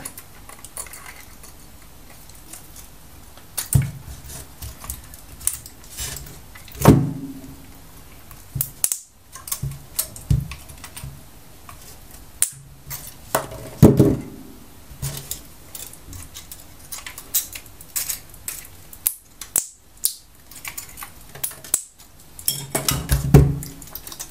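Side cutters snipping the nickel connecting strips between 18650 lithium-ion cells, with irregular clicks and clinks as the cells are handled and pulled apart. A few sharper cuts stand out, about 4, 7, 14 and 23 seconds in.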